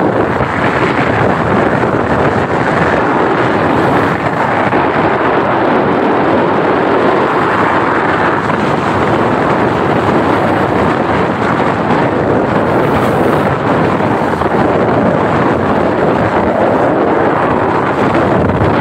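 Steady, loud rush of wind buffeting the microphone, mixed with the water noise of a motor yacht under way through rough seas.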